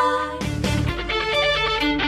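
Background music with guitar, coming in about half a second in.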